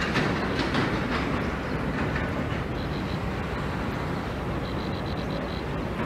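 Steady low rumbling background noise, with faint high repeated notes about halfway through and again near the end.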